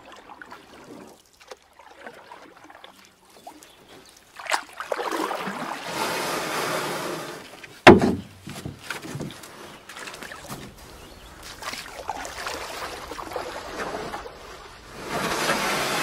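Water rushing and sloshing along a small sailboat's hull under way. The rushing swells about four seconds in, with one sharp knock, the loudest sound, about eight seconds in.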